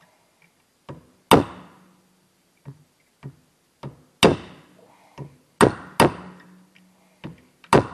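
Ball-peen hammer striking a steel pin punch to drive a roll pin out of a clutch hydraulic fitting held in a vise. About a dozen irregular metal-on-metal blows: light taps between five hard strikes, each hard strike ringing briefly.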